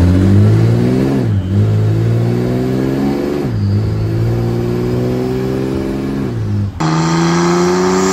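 Mercedes OM606 turbo-diesel inline-six in a drag car accelerating through upshifts of its 722.6 automatic, heard from inside the cabin, the engine pitch creeping up and dropping at each shift about one and three and a half seconds in. About seven seconds in it changes abruptly to the same car heard from the roadside, a brighter engine note rising as it pulls.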